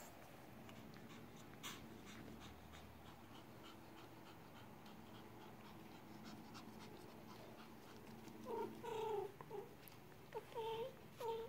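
Parti Pomeranian puppies at play, with faint scattered clicks and scuffling, then a run of short, high-pitched puppy yips near the end.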